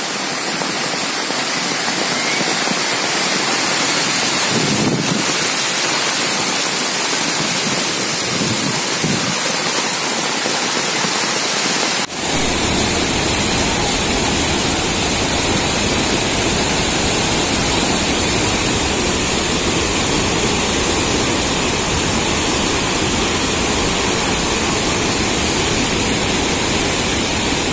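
Rushing floodwater under heavy rain, a steady loud hiss: first a muddy runoff stream, then, after a sudden cut about twelve seconds in, a flooded river in spate with a fuller, lower rush.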